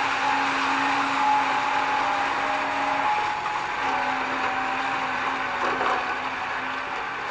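Wood chipper running with a steady mechanical whine and hum.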